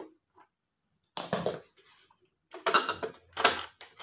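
Plastic base of a juicer-blender being handled and tipped on a wooden floor: two spells of rattling, scraping clatter, about a second apart, the second one longer.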